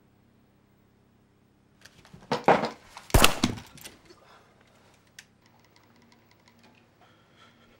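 Nail gun fired at close range. A few sharp knocks come about two and a half seconds in, then one loud sharp crack about three seconds in, with a short rattle after it.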